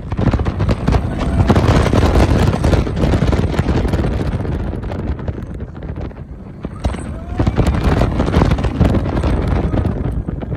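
Wind rushing hard over the microphone and a Bolliger & Mabillard hyper coaster train rumbling along its track at speed on a drop. The noise eases for a moment about six seconds in as the train crests a hill, then builds again.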